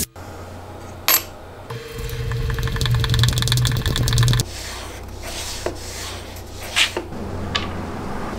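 A sharp click about a second in, then a power driver whirring for about two and a half seconds with a fast, even ticking as it drives a screw through a large steel washer into a hardwood block. A few light clicks follow as the clear plastic base of a trim router is handled.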